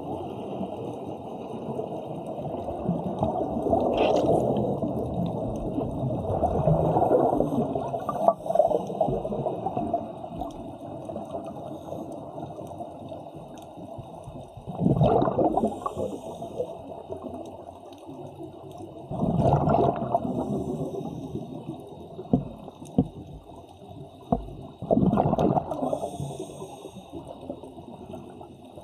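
Underwater sound of a scuba diver breathing through a regulator. In the first half there are swells of bubbling water noise, then three bursts of exhaled bubbles come about five seconds apart.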